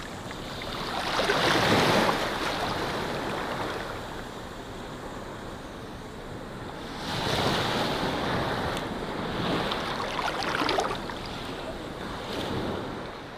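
Sea waves breaking and washing up on a sandy shore, rising and falling in slow surges: loudest about two seconds in, again from about seven seconds, with smaller swells near the end.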